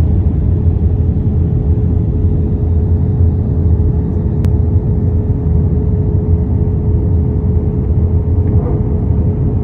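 Steady cabin noise of an Airbus A320-family jet airliner in flight: a loud, even low rumble of engines and airflow with a constant tone running through it.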